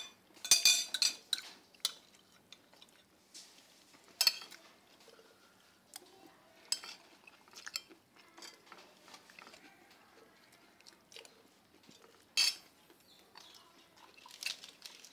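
Spoons clinking against ceramic plates and bowls as people eat, in scattered knocks and clatters. The loudest come about half a second in, around four seconds, about twelve seconds in and near the end.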